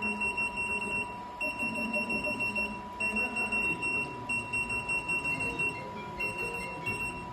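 Control-panel key beeps of a programmable pattern sewing machine: runs of quick high beeps, about five a second with short pauses between runs, as a direction key is pressed repeatedly to jog the frame without sewing to the next pattern's start point.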